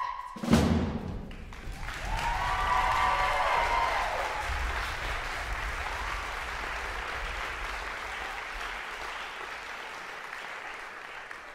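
The aria's last sung note ends and a loud final hit from the orchestra sounds about half a second in. From about two seconds in, the audience applauds with whoops and cheers, and the applause slowly fades.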